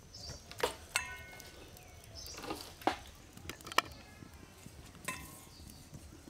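About five scattered knocks and clinks of a steel bowl and plate as dried fish is washed by hand and set down; the knock about a second in leaves a short metallic ring.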